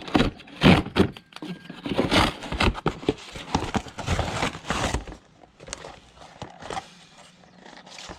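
Irregular knocks, scrapes and rustling of things being handled, busy for about five seconds and then sparser, with only a few clicks.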